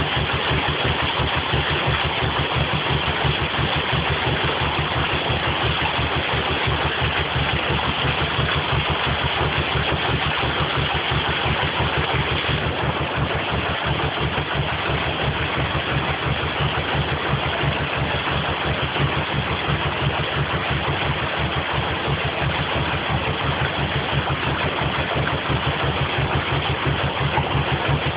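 Narrowboat's engine idling with a steady low beat, over the continuous rush of water pouring through the lock gate paddles as the lock fills.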